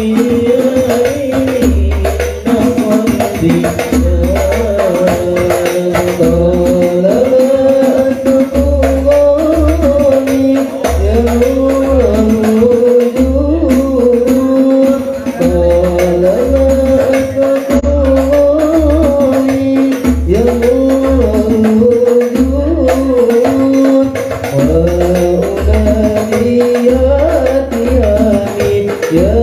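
Islamic devotional song (sholawat) sung by a male lead voice over a hadrah ensemble of hand-played rebana frame drums. Deep bass drum strokes repeat in a steady rhythm under the singing.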